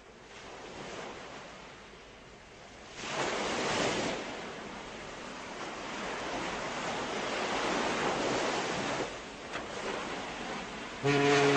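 Sea waves washing with wind buffeting the microphone, swelling about three seconds in. Near the end a loud, steady pitched drone comes in.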